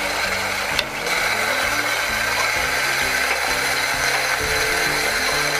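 Steady rushing and splashing of water pouring into a homebrew mash tun as it fills. It gets louder after a small click about a second in.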